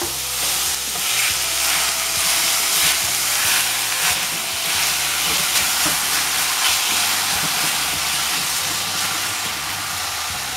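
Ground beef sizzling as it fries in a hot pot with onion and garlic. A silicone spatula stirs and breaks up the meat throughout.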